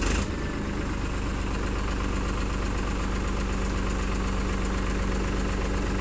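Tractor diesel engine idling steadily with an even low pulse, after a short sharp burst of noise right at the start.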